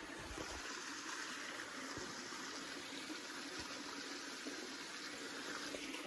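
A mountain creek flowing with a steady rush of water, with a few soft low thumps.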